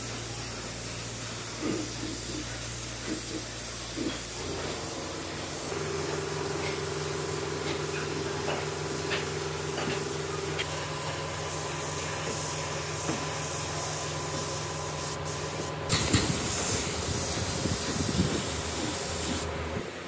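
Gravity-feed air spray gun hissing steadily as it sprays a finish coat onto wood, over a low steady hum. The hiss grows louder about four seconds from the end, then cuts off just before the end.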